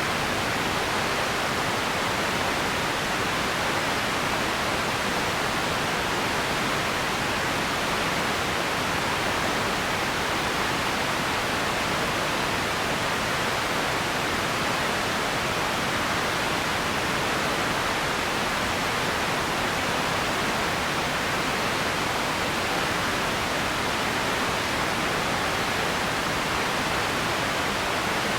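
Steady, unchanging hiss-like noise, loudest in the middle range and thinner in the lows and highs, with no separate events: an empty ambience noise bed.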